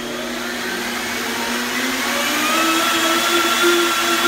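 Countertop blender running, blending sunflower seeds and water into a vegan crema; about two seconds in its motor pitch rises and it gets louder.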